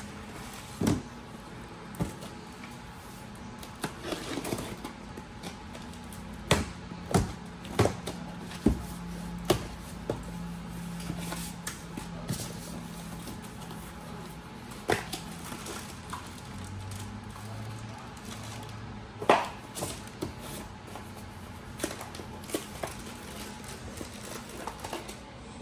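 Unpacking a cardboard shipping box: irregular knocks, clicks and rustles as cardboard, foam packing and plastic-bagged parts are handled and set down, with a faint steady low hum underneath.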